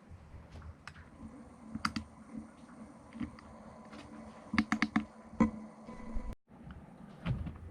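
Feiyu G6 gimbal motors humming steadily, with a faint high whine, picked up by a GoPro Hero 7's built-in microphone. Sharp clicks and taps, the loudest sounds, come in small clusters over it, and the sound drops out for an instant about six seconds in.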